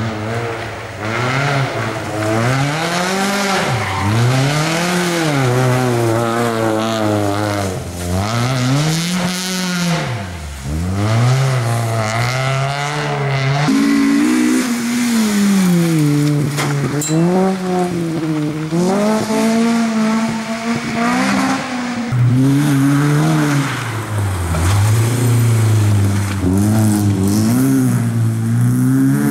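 Rally cars driven hard one after another, engines revving high and dropping again with each gear change and lift. The engine note changes abruptly twice as one car gives way to the next; the last is a BMW E30 3 Series.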